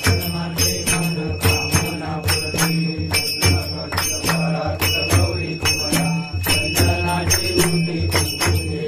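Devotional Ganpati music with a steady, fast jingling beat over a drum.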